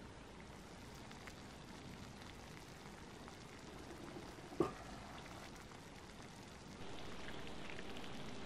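Jambalaya rice simmering in a cast-iron Dutch oven with a faint, steady, rain-like crackle. Just past halfway there is one sharp clank of the cast-iron lid. Near the end the crackle grows louder.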